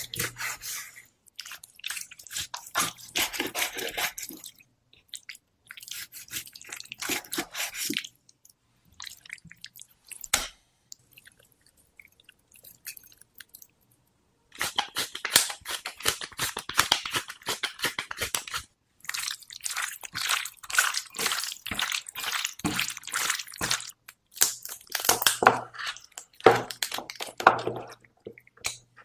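Close-up food preparation: a cleaver cutting raw chicken on a wooden board, then sea salt and black pepper sprinkled onto the chicken pieces and the meat mixed in a bowl. The sounds come in separate bursts of rustling and sharp clicks with short silences between.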